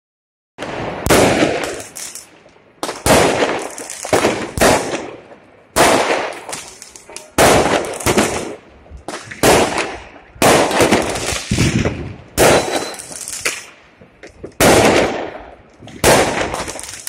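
Aerial fireworks exploding: a steady run of sharp bangs, roughly one a second, each trailing off in echo.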